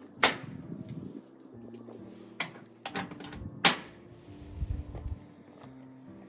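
Sharp clicks or knocks: two loud ones about three and a half seconds apart, with a few softer ones between, over faint background music.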